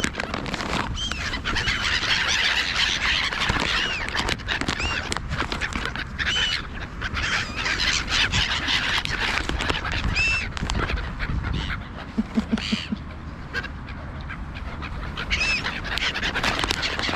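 A crowd of water birds calling over one another: a dense chorus of harsh, repeated arched cries mixed with duck calls, at a feeding spot.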